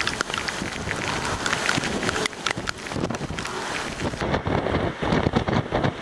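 Strong, gusty wind buffeting the microphone in the inflow of a nearby tornado. About four seconds in, the sound changes suddenly and loses much of its hiss.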